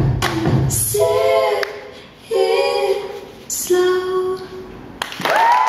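Dance music for a zouk demonstration: after a couple of beats at the start, a singer holds three long notes over an otherwise sparse track. The music cuts off abruptly about five seconds in.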